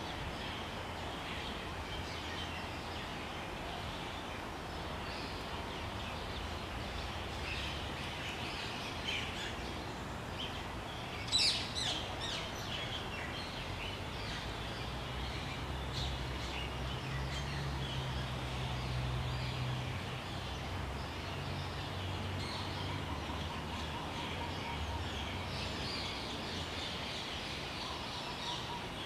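Small birds chirping, with short high calls scattered throughout and a louder burst of chirps about eleven seconds in, over a steady low background rumble.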